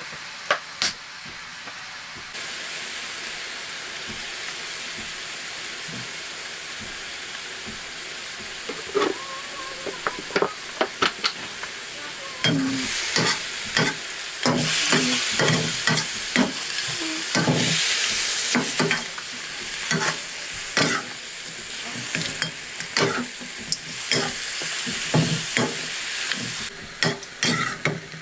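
Food sizzling in hot oil in a cooking pan while being stirred, with irregular clicks and scrapes of a spoon against the pan. The sizzle grows louder about twelve seconds in and eases off near the end.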